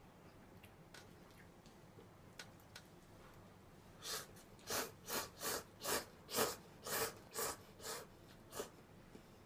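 A person slurping instant cup noodles: a run of about ten short, loud slurps, roughly two a second, starting about four seconds in. Before that there are a few faint clicks.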